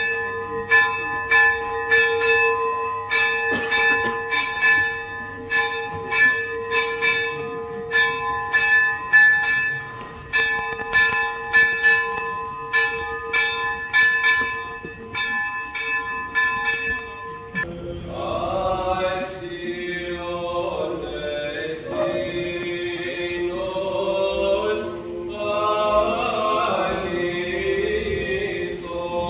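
Church bells ringing a rapid, festive peal of repeated strokes over a steady humming tone. About two thirds of the way in they cut off suddenly and a choir is heard chanting Orthodox chant.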